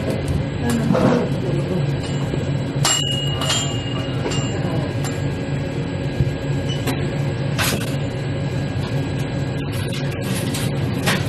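Steady mechanical hum of a convenience store's background, with a few short sharp clicks and knocks scattered through it.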